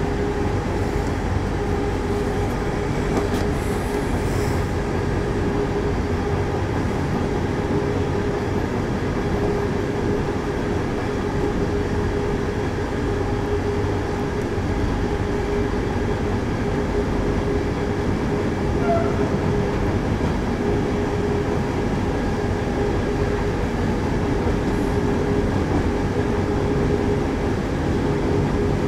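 A train running steadily along the track, an even rumble of wheels on rail under a constant hum.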